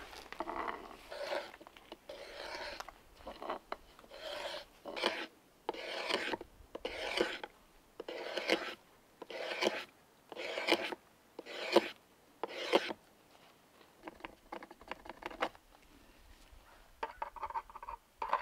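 Drawknife shaving a peeled wooden pole, one rasping stroke about every second. The strokes stop about 13 seconds in, then a few fainter ones follow.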